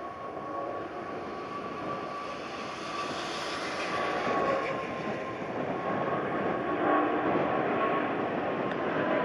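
Jet airliner's engines: a steady whine over a dense rushing noise, growing louder partway through.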